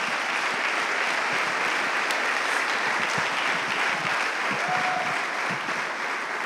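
Audience applauding, the clapping starting to die down near the end.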